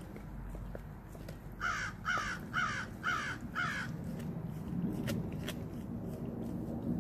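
A crow cawing five times in quick succession, about two caws a second. Two sharp clicks follow a little later.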